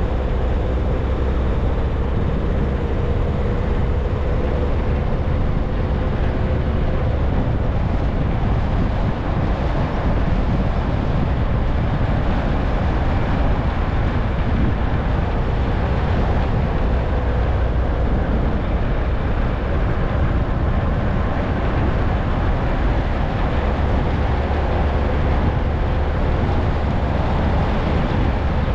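Steady road and wind noise from a vehicle driving along a paved road, with a strong low rumble underneath. A faint whine runs through the first several seconds and fades out.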